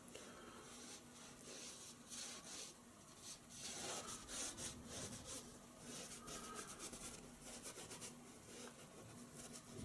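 Faint scratchy rubbing of a paintbrush dragged across stretched canvas in short, repeated strokes, laying in oil paint. The strokes are busiest about halfway through.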